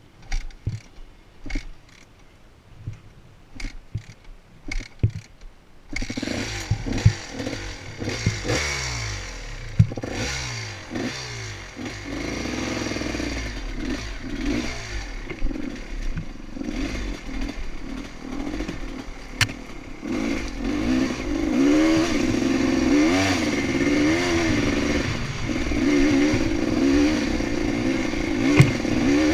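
Dirt bike engine revving up and down as the bike climbs a rocky trail, with clattering from the bike over the stones. Before that, about six seconds of only scattered clicks and knocks, then the engine comes in suddenly.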